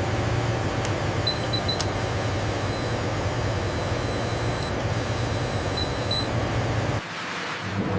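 Steady machine noise with a low hum, and a thin high-pitched steady tone from about a second in until near six seconds. Near the end the sound cuts abruptly to a quieter noise.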